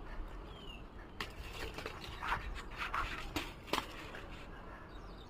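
Ivy gourd vine leaves rustling and scratching as gourds are picked by hand, with a few sharp clicks of stems snapping.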